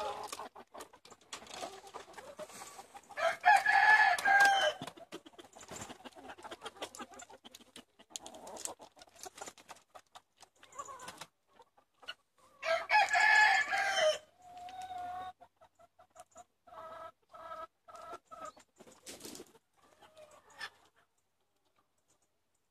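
Roosters crowing twice, once about three seconds in and again about thirteen seconds in, with hens clucking. A run of short, evenly spaced clucks follows the second crow. Light clicks and crunches are heard in between.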